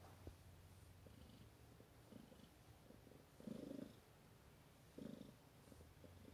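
Somali cat purring faintly while being stroked, the purr swelling in soft pulses a second or two apart, strongest around the middle. It is a contented purr from a relaxed cat enjoying the petting.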